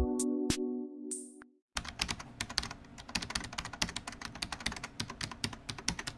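Fast computer-keyboard typing, a dense run of sharp key clicks that starts about two seconds in and stops abruptly. Before it, electronic music chords fade out, with a brief hiss.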